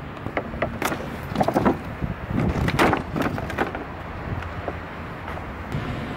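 Loose scrap wooden slats knocking and clattering in a run of sharp knocks, busiest in the first few seconds, over a steady low rumble.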